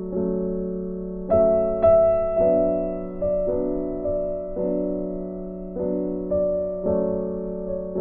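Slow background piano music: sustained chords struck about once a second and left to fade, with two louder high notes about a second and a half in.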